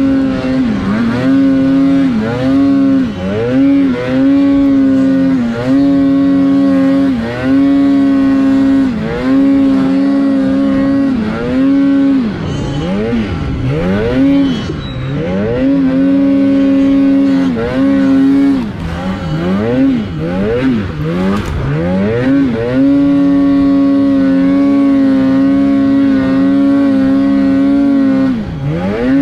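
Polaris RMK snowmobile's two-stroke engine running hard at high revs, its pitch holding steady, then dropping and climbing back again every second or two as the throttle is eased and reopened, with a longer steady pull near the end.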